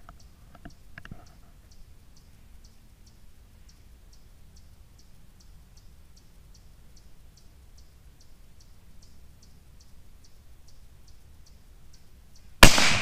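A single sharp, loud shot from a .17 HM2 rimfire rifle, near the end. Before it, a faint, regular high ticking runs at about three a second.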